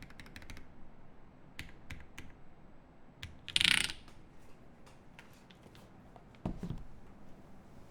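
Think 6.5 V2 mechanical keyboard with lubed Dogikon switches and GMK keycaps on an FR4 plate being typed on. A fast run of keystrokes stops about half a second in and gives way to a few scattered single key presses. A loud brief scraping noise comes a little before the middle, and a dull thump follows near the end.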